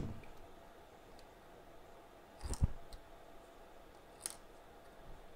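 A quiet workbench with a short cluster of small clicks and a soft knock about halfway through, then one sharp click about a second and a half later: small handling sounds while a picture is taken.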